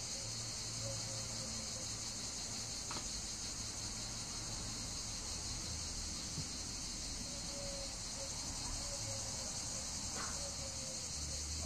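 Cicadas droning steadily at a high pitch, over a low hum, with a couple of faint clicks.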